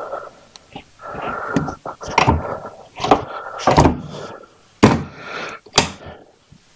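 Metal clunks, clicks and scraping from a detachable backrest being guided onto the docking points of a Harley-Davidson Dyna Switchback and snapped into place. There are several sharp knocks, and the loudest come in the second half.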